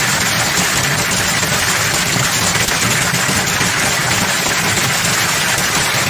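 Heavy thunderstorm rain beating against glass, a steady dense hiss with a low rumble underneath.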